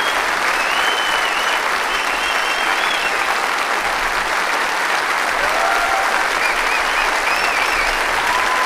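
A large audience applauding, a dense, steady standing ovation, with a few faint high calls heard over the clapping.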